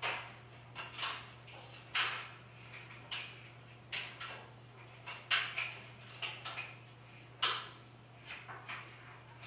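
Cat drinking by dipping a front paw into a bowl of water and licking the water off it: a string of short, wet licking and splashing sounds at irregular intervals, one or two a second, the loudest about four seconds in and again near the end.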